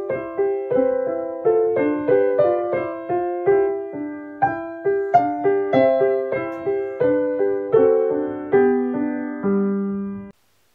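Piano played with both hands: a gentle melody over an accompaniment in the middle register, notes struck at an even pace of about two a second. It cuts off abruptly just before the end.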